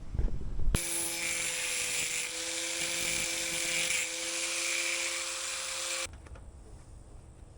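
Handheld electric grinder working sheet steel for about five seconds: a steady high whine over a dense hiss. It starts suddenly about a second in and cuts off suddenly.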